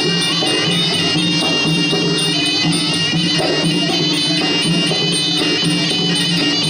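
Live Cambodian ring music for a Kun Khmer fight: a sralai reed oboe playing a reedy, bagpipe-like melody over low drones, with percussion keeping a steady beat.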